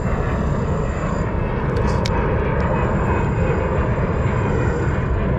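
Wind buffeting an action camera's microphone: a steady, loud rumble with no rise or fall.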